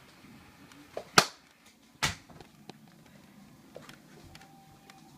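Two sharp knocks a little under a second apart, the first the louder, with a few faint clicks and light handling noise around them in a small room.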